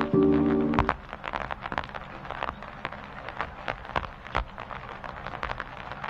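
The beat's sustained chord stops about a second in, leaving a soft crackle of scattered clicks over a light hiss that runs to the end of the track.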